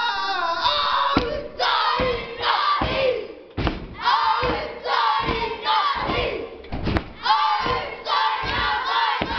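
A kapa haka group chanting a haka in unison, shouted phrases over regular thuds from stamping feet and slapped bodies, about one a second.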